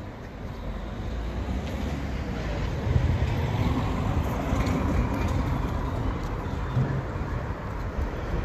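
Steady low rumble of vehicle noise, growing louder about three seconds in.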